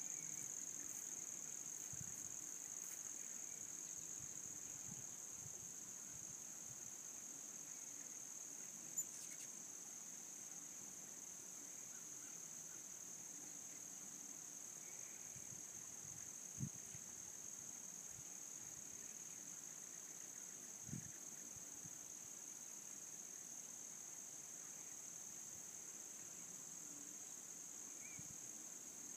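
Insect chorus, a faint, steady, high-pitched chirring that never pauses, with three brief soft knocks spread through it.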